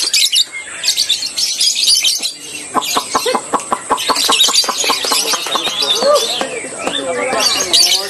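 Several caged lovebirds singing at once, a dense, continuous high-pitched chattering and chirping, with a rapid run of short clicking notes in the middle.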